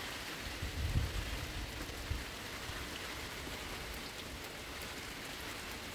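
Steady rain falling, an even hiss of drops, with a brief low rumble about a second in.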